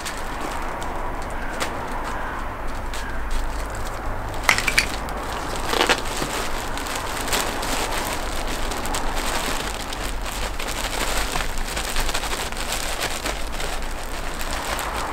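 Potting soil pouring and pattering out of a plastic bag into a planter box, with the bag's plastic crinkling and rustling as it is handled. There are a few louder rustles about five seconds in.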